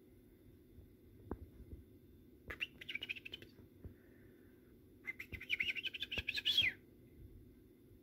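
European goldfinch twittering in two bursts of rapid, high chirps, the second longer than the first.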